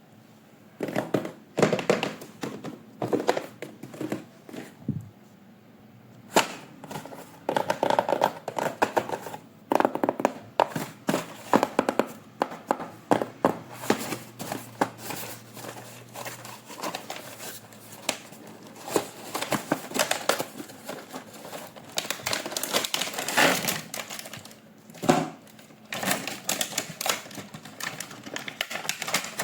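Toy packaging being handled and opened: a string of plastic and cardboard crinkling with taps, clicks and knocks.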